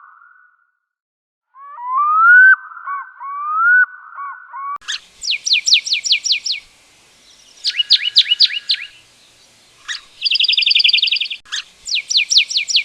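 Wild bird calls from two recordings. First comes a repeated rising whistled call. After a cut about five seconds in, a songbird sings short phrases of quick down-slurred high notes, with one buzzy trill in the middle.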